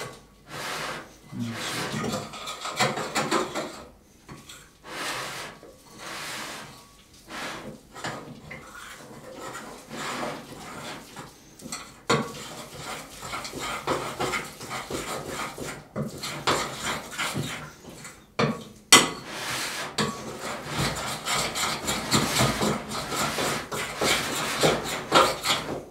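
A spoon stirring pancake batter in a glass bowl, scraping and clinking against the glass in uneven strokes, with a few sharper knocks.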